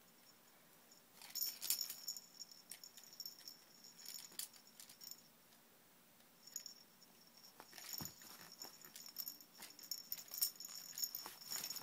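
Hanging toys on a baby play gym rattling and jingling as a baby bats them with her hands: irregular bursts of small clicks and jingles that start about a second in, pause briefly around the middle, then pick up again.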